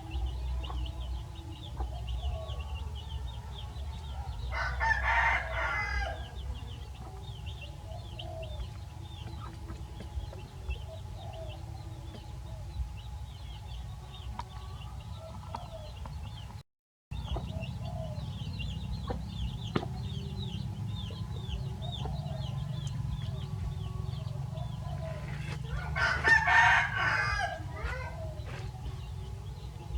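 A rooster crowing twice, about five seconds in and again near the end, over steady high chirping. The sound drops out completely for a moment about halfway through.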